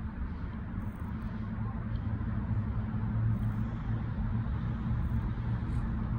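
Steady low rumble of distant road traffic, with a hum that grows a little stronger about two seconds in.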